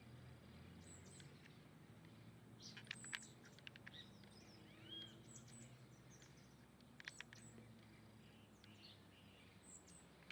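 Small birds chirping faintly in short scattered calls, with clusters of quick sharp chirps about three and seven seconds in, over a steady low background hum.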